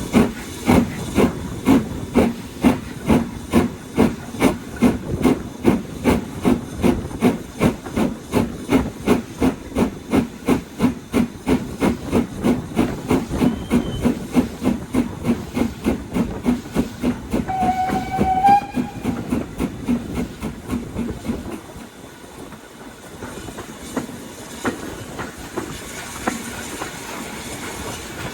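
BR Standard Class 4 4-6-0 steam locomotive 75069 working hard, with a steady, rapid run of even exhaust beats. A brief whistle note comes about halfway through and a longer whistle blast a few seconds later. The beats stop abruptly near the end, leaving a quieter, steady hiss.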